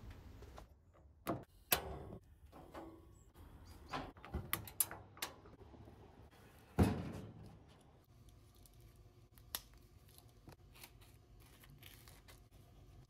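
Scattered household knocks and clicks, the loudest a single sharp knock with a short ring about seven seconds in; near the end, a butter knife scraping softly across toast.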